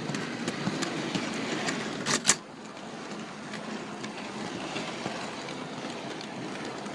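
Model railway train running along the track, its wheels clicking over the rail joints. A loud brief clatter comes about two seconds in, and after it the running is quieter.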